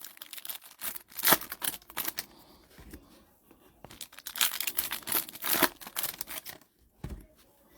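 Trading-card packaging being torn open: irregular tearing and crinkling of wrapper in two spells, with a short lull in between.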